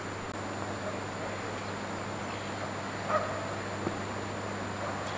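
Steady outdoor background noise with a low hum, and a faint short call about three seconds in.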